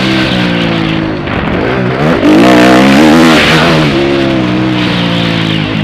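Motocross bike engine revving hard as the bike is ridden over a dirt track, its pitch rising and falling with throttle and gear changes. The throttle snaps open loudly about two seconds in, and the revs fall away again after the middle.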